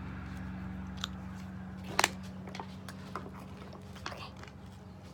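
Chewing and mouth clicks from eating honeycomb: a few scattered sharp clicks, the loudest a double click about two seconds in, over a steady low hum.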